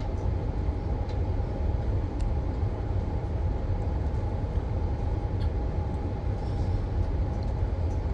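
Electric passenger train running along the track: a steady low rumble with a few faint clicks.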